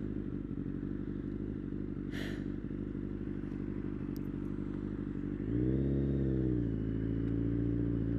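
Motorcycle engine running steadily under way. About five and a half seconds in it gets louder, its pitch rising and then falling back over about a second, before it settles into a steady run again.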